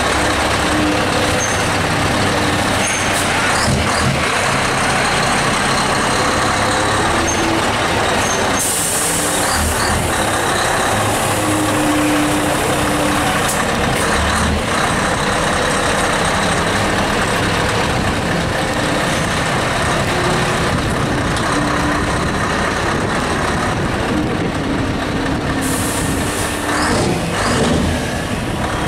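Scania truck's diesel engine running as the truck manoeuvres slowly, with a sudden sharp hiss of air brakes about nine seconds in and again near the end.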